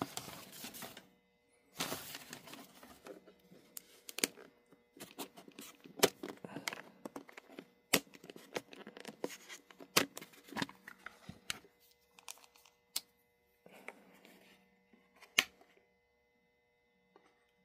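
A plastic precision screwdriver bit case being handled and opened: a run of sharp clicks, snaps and knocks from the case and its metal bits, with bouts of rustling in between.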